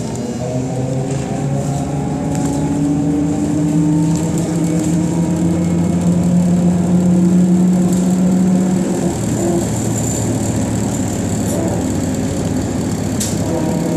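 BKM 221 trolleybus under way, heard from inside: its electric traction drive whines, rising in pitch as it accelerates, then holds steady and fades about nine seconds in, over the rumble of the ride.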